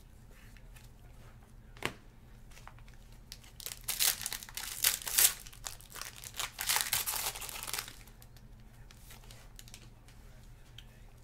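Foil trading-card pack wrapper being crinkled and torn open, loud and uneven, for about four seconds. A single sharp click comes shortly before.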